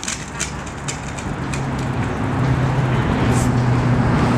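City traffic noise, with a motor vehicle's low engine hum growing louder through the second half.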